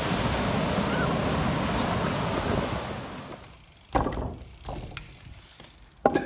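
Surf breaking and washing up a beach with wind on the microphone, fading out about three seconds in. Then a child's small BMX bike knocks on a wooden plank ramp and concrete, once about four seconds in and again, sharper, near the end.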